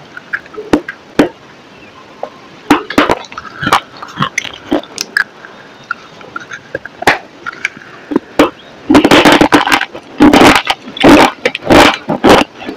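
Close-up crunching of a hard, chalky white bar being bitten: scattered sharp snaps for the first eight seconds or so. Then, from about nine seconds in, a fast run of loud crackling chews.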